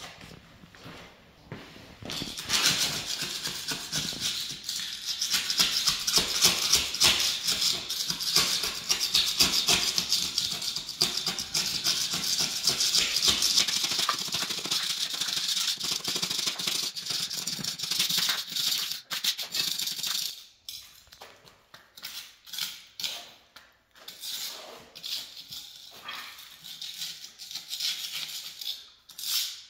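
Hand floor scraper scraping old thinset mortar and loose tile chips off the floor: fast continuous rasping with rattling chips, starting a couple of seconds in, then from about two-thirds through, slower separate scrapes.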